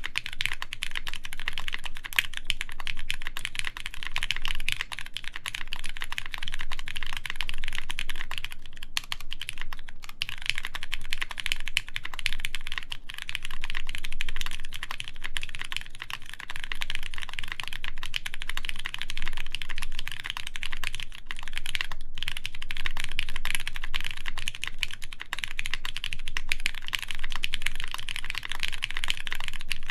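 Continuous fast typing on a mechanical keyboard with lubed Cherry MX Brown tactile switches, GMK keycaps and an aluminium plate: a dense stream of keystroke clacks with only a few brief pauses.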